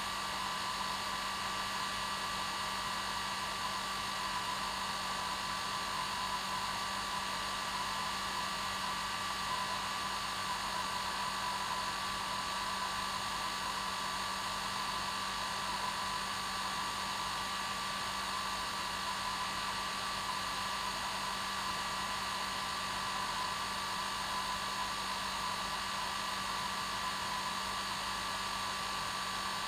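Hair dryer running steadily on its normal setting, a constant blowing hiss with a steady motor hum and whine that never changes.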